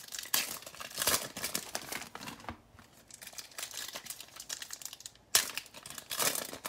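Foil trading-card pack (Panini Prizm football) being torn open and crinkled by hand: irregular crackling, with a sharp loud crackle a little after five seconds in.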